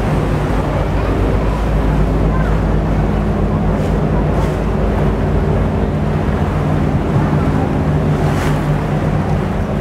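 A river sightseeing boat's engine running steadily, heard on board, with water rushing past the hull and wind on the microphone.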